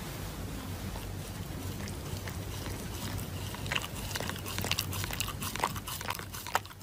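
Dog chewing and biting a paper face mask. It makes crackling, crinkling paper clicks that get busier about halfway through, over a low steady hiss.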